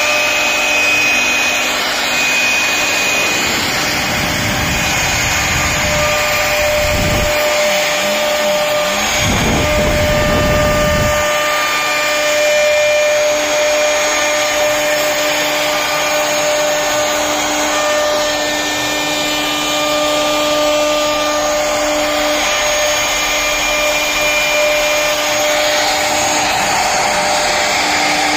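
CNC router spindle running steadily while carving a wooden door panel: a steady high whine over a rush of cutting noise. A wavering low rumble joins it between about four and eleven seconds in.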